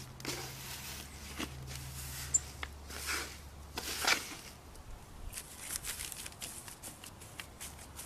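Gloved hands patting and smoothing wet hypertufa mix (Portland cement, sand, peat moss and perlite) over a mold lying on plastic sheeting: scattered soft pats, scrapes and rustles, with two louder swishes about three and four seconds in.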